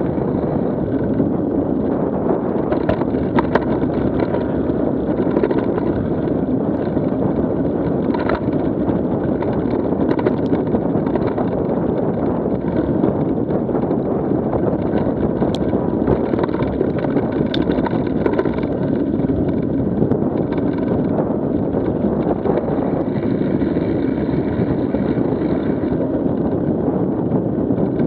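Steady rumble of wind over the microphone and knobby mountain-bike tyres rolling on a dirt singletrack, picked up by a camera riding on the bike, with a few faint clicks and rattles.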